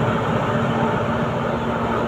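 Thai State Railway Alsthom diesel-electric locomotive no. 4131 pulling a train slowly past at close range. Its engine drones steadily with a steady low hum.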